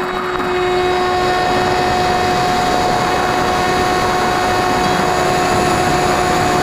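FPV Penguin radio-controlled plane's electric motor and propeller running at a steady pitch in flight, a constant hum over wind rushing past the onboard camera's microphone.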